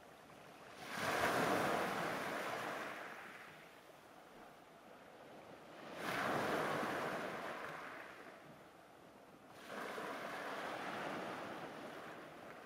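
Small waves breaking on a pebble beach: three surges of surf, each rising quickly and fading as the water washes back over the stones.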